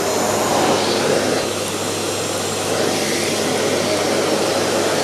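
Henry HVR 160-11 620-watt bagged cylinder vacuum cleaner running steadily.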